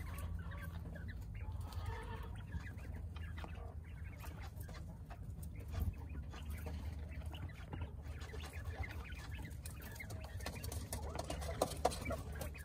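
Domestic coturnix quail giving short, soft calls, with more of them near the end, among the scratchy rustle of birds moving in dry straw and dirt, over a low steady hum.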